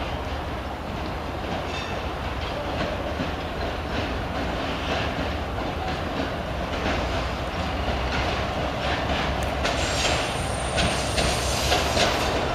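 LDH diesel-hydraulic shunting locomotive running at low speed with freight wagons, its engine a steady low hum that grows louder as it approaches. Its wheels click over the rail joints and points from about seven seconds in, with a brief high squeal about ten seconds in.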